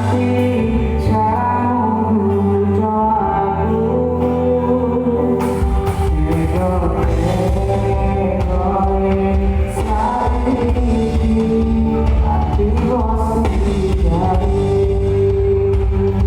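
A band playing a song with a lead singer over bass and drums; the low end turns busier and more rhythmic about five and a half seconds in.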